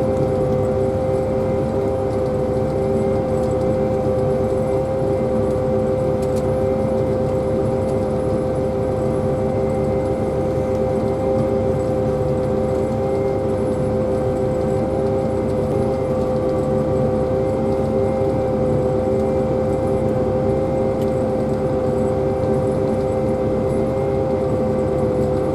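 Self-propelled pea viner running: a constant, unchanging machine drone with a steady hum through it.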